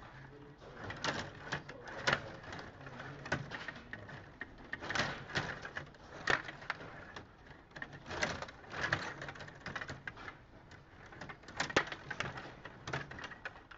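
Table hockey game in play on a Stiga Play Off rod hockey table: the metal control rods click and rattle as they are pushed, pulled and twisted, and the plastic players and puck knock against each other and the boards. The clicks and knocks come in irregular quick runs.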